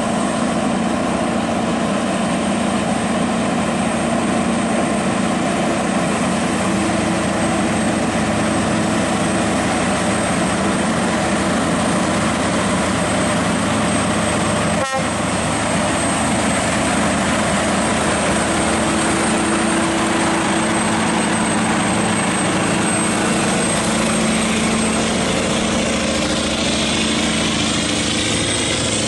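Heavily loaded Scania R580 truck running downhill, its V8 engine and brakes making a loud, steady noise with a few held tones in it, the truck braking under a 60-ton load on the descent.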